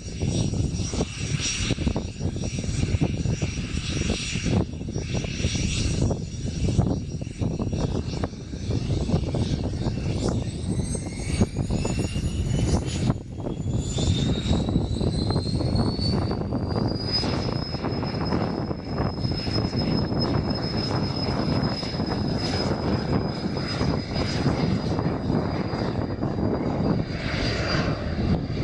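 Turboprop aircraft engines running loud and rough. A high whine climbs in pitch for several seconds about a third of the way in, then holds steady as the engines spool up.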